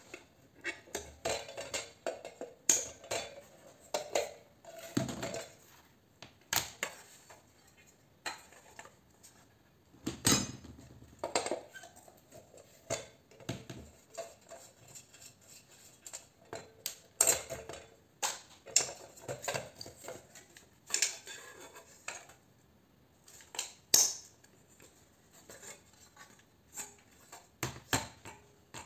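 Irregular metallic clinks, knocks and rattles as a light fitting is taken apart by hand: pliers working on its fixings and wires, and the thin aluminium reflector and housing knocking against the bench.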